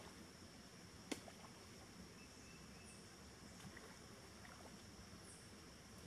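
Near silence: faint outdoor background with a steady high-pitched tone and one sharp click about a second in.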